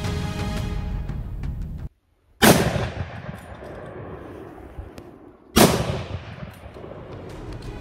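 Background music that cuts off, then two loud hunting-rifle shots about three seconds apart, each echoing away over a couple of seconds.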